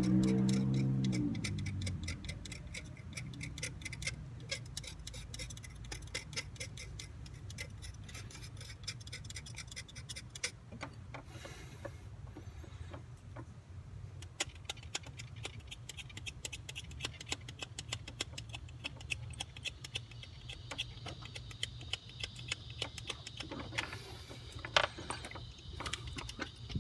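Rapid, irregular scraping clicks from hand-cleaning old gunk and deposits off an engine's thermostat housing mounting surface, over a low steady hum.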